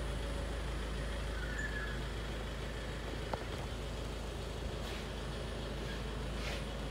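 Steady low background rumble with a faint high hiss, broken by a single short click a little over three seconds in and two faint swishes near the end.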